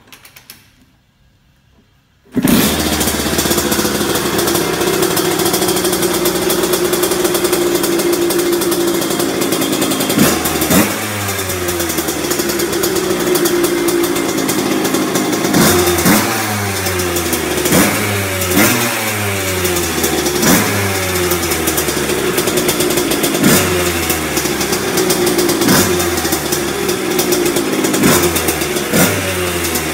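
1990 Kawasaki KX80's two-stroke single-cylinder engine kick-started, firing up suddenly about two seconds in. It then runs with a dozen or so quick throttle blips from about ten seconds in, each rev falling back toward idle.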